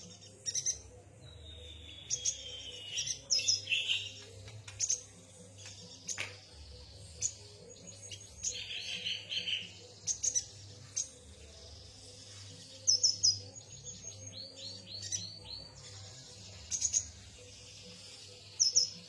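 Yuhina chirping and twittering: short sharp high chirps, a falling whistle about two seconds in, and quick runs of repeated notes.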